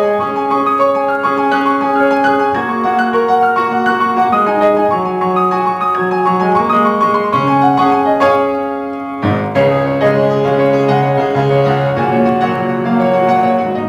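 Solo piano music: a melody over a moving bass line, the notes changing quickly, with a brief dip and a fresh chord struck about nine seconds in.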